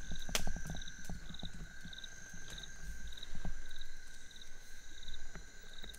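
Night insects calling: a steady high drone with short chirps repeating about every half second or so. Scattered sharp clicks and low knocks, busiest near the start, sound over them.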